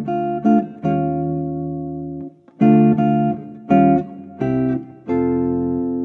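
Guitar music: chords struck about once a second, each ringing out and fading.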